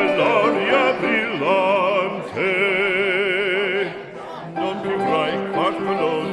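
Operatic singing as background music: a voice with wide vibrato over instrumental accompaniment, holding one long note near the middle.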